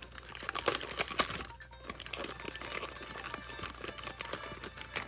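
Foil trading-card pack wrapper crinkling as it is torn open by hand, loudest about a second in, over quiet background music.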